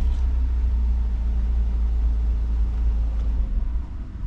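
Lada Largus engine idling steadily, heard from inside the cabin: a low, even rumble.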